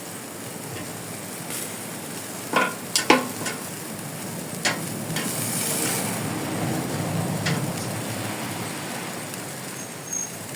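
Chicken wings sizzling on a charcoal grill, a steady hiss broken by a few sharp clicks or pops, the loudest about three seconds in.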